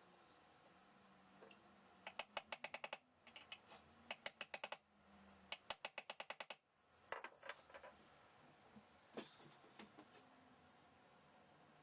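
Faint runs of rapid, evenly spaced light clicks, about ten a second, in four short bursts, then a few single clicks.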